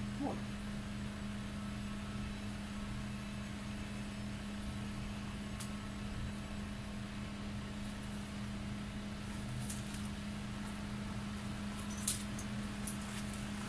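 Steady low mechanical hum from a running motor, with a few sharp clicks near the end.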